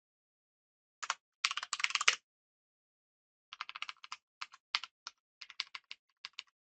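Computer keyboard typing: a quick burst of keystrokes one to two seconds in, then a looser string of separate key presses from about three and a half seconds until near the end.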